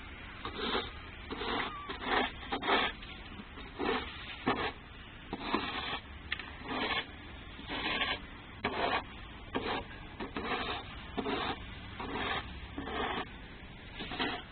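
Footsteps in fresh snow, a short crunch with each step at a little over one step a second.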